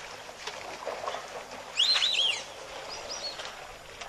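A bird calling: a quick run of four or five short notes that each rise and fall, about two seconds in, then two fainter, higher notes about a second later, over faint steady background noise.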